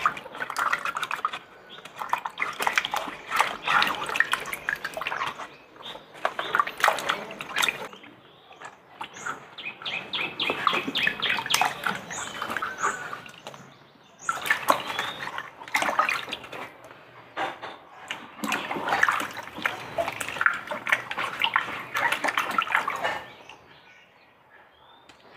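Water splashing and sloshing in several bouts of a few seconds each, with short pauses between them.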